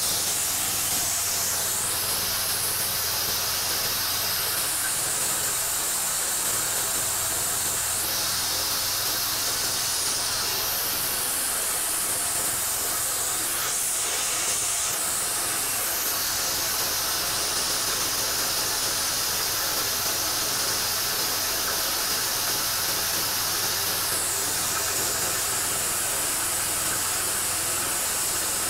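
Small petrol engine driving a blade-and-screen chopper-grinder that is milling dried corn kernels into meal. It runs steadily under load: a constant rush of grain being ground over the engine's low hum.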